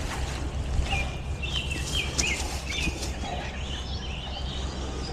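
A bird sings a string of short chirping notes over a steady low rumble.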